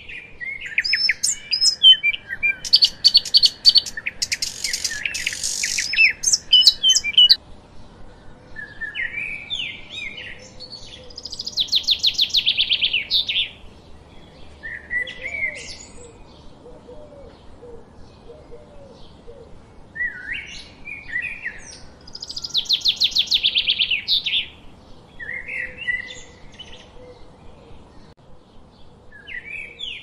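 Songbirds singing: quick chirps and warbled notes with a fast trill. The trilled phrase comes back about every eleven seconds, after a dense rush of notes in the first several seconds.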